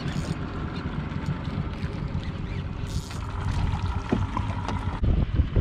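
Water splashing and sloshing at the side of a small boat as a hooked jack crevalle thrashes at the surface beside the hull.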